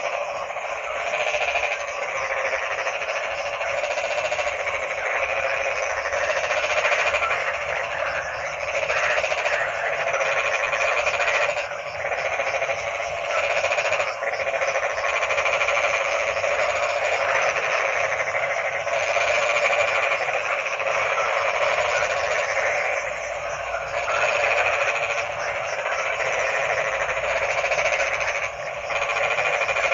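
Dense chorus of many frogs croaking, overlapping calls forming a steady din that swells and eases every few seconds.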